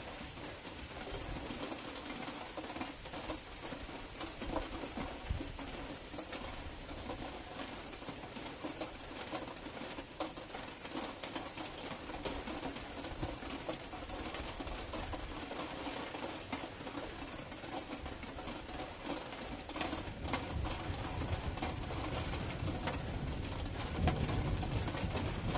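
Steady rain hiss of a night thunderstorm, with low, distant thunder rumbling in during the last few seconds.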